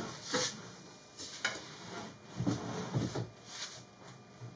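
Heavy plywood box holding a squirrel-cage blower being pushed and turned on a wooden workbench: several short knocks and scrapes of wood on wood.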